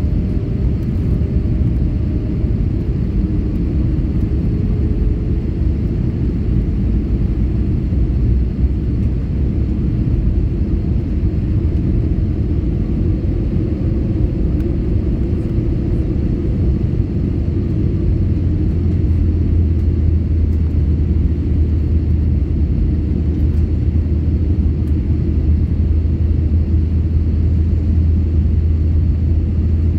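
Airbus A320neo cabin noise on descent: a steady low rumble of airflow and its Pratt & Whitney geared turbofan engines, with faint engine tones drifting slightly in pitch. A deeper hum swells about two-thirds of the way through and holds.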